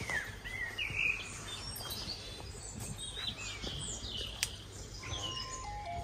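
Small birds chirping and singing, short rising and falling calls scattered through, over a steady low outdoor hum.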